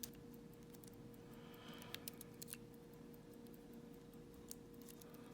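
Faint, sparse clicks of a lock pick working the wafers of a small vintage Elgin wafer padlock, a few together about two seconds in and one more near the end, over a steady low hum.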